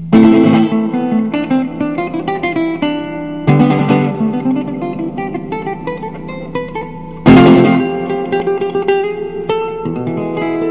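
Background music on acoustic guitar: three loud strummed chords about every three and a half seconds, each followed by quickly picked notes.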